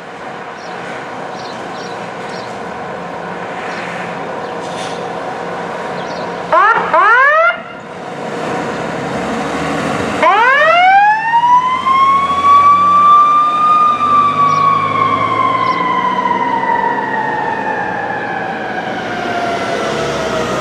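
Fire-rescue truck siren: a quick burst of about four loud rising yelps, then a few seconds later a long wail that climbs steeply for a few seconds and slowly winds down, over the truck's engine running.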